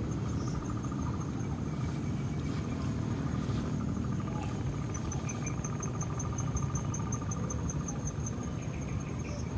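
Insects, crickets or similar, trilling steadily in fast even pulses, one high and one lower, the high trill growing clearer about halfway through, over a steady low rumble.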